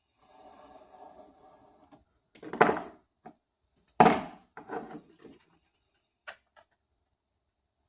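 Hard objects handled on a work surface: a scraping rustle for about two seconds, then two loud clunks about a second and a half apart, followed by a few lighter clicks.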